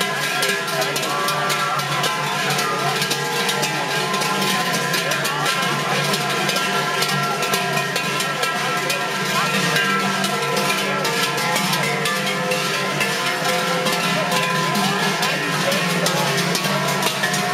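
Many large bells worn on the belts of Glöckler runners ring continuously as they move in procession. The result is a dense, unbroken jangle of overlapping bell tones, with crowd voices underneath.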